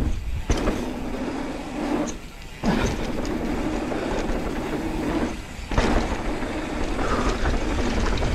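Mountain bike riding down a dirt trail: tyres rolling and the bike rattling over bumps, with sharp knocks now and then. The noise drops briefly twice.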